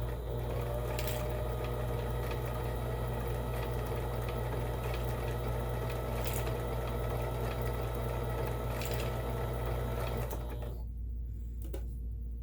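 Vintage Kenmore 17922 electronic sewing machine running steadily while sewing a widened decorative stitch. It stops about eleven seconds in.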